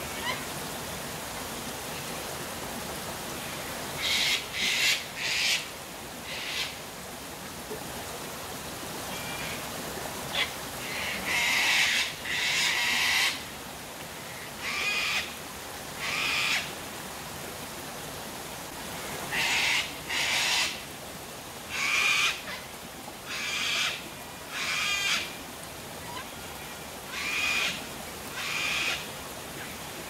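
Sulphur-crested cockatoos screeching: a string of repeated harsh screeches, each under a second long, some in quick clusters, starting about four seconds in. Underneath is the steady rush of a waterfall.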